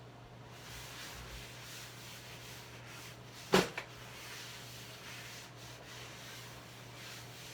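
Light rubbing and scraping on a hard surface, with one sharp knock about halfway through and a smaller click just after it, over a steady low hum.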